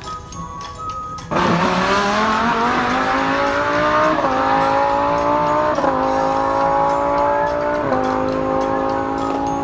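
Recorded race-car engine sound accelerating hard through the gears. It starts suddenly about a second in, and the engine note climbs steadily, dropping back briefly at each of three gear shifts, over background music.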